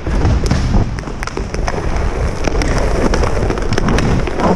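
Hockey skates scraping and carving on ice, with many sharp clicks of sticks and puck, over a low rumble of wind on the microphone.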